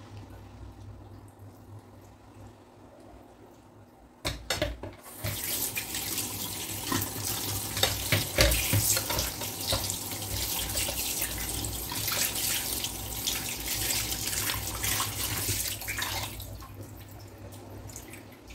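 Kitchen tap running into a sink while raw chicken thighs are washed under it, the water splashing steadily. A few knocks come about four seconds in, and the running water starts just after. It fades out about two seconds before the end.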